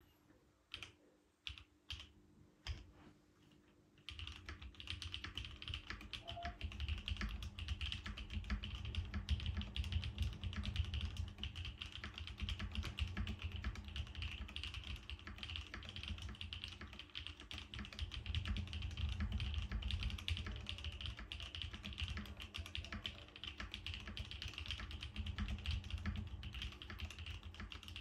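Typing on a 7V mechanical keyboard built plateless and gasket-mounted, with lubed Gateron Cream Soda linear switches and GMK keycaps. A handful of single key presses, spaced about half a second apart, come over the first four seconds; then continuous fast typing follows.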